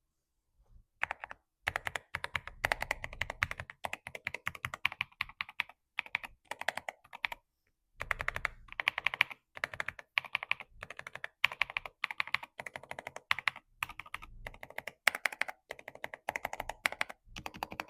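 Fast typing on a Gamakay TK101 mechanical keyboard with linear switches, keystrokes coming in quick runs broken by short pauses.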